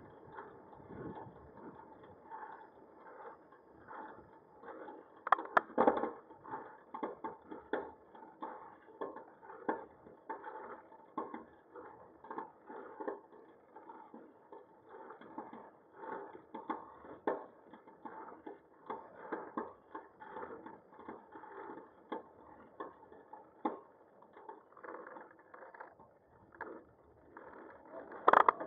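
Bicycle rattling and knocking over an uneven road, an irregular run of jolts with heavier clusters about five seconds in and near the end, picked up muffled by a bike-mounted GoPro.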